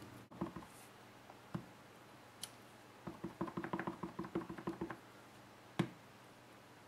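A rubber stamp tapped again and again on an ink pad: a quick run of light taps, about seven a second, lasting some two seconds. A single sharper knock follows near the end.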